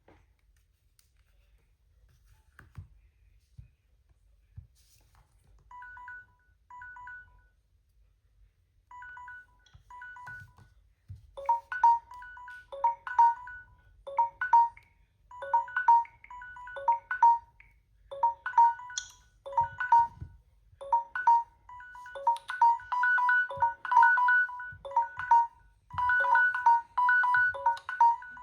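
Samsung Galaxy phone alarm sound: a short repeating electronic melody that starts faintly about six seconds in and becomes much louder about five seconds later.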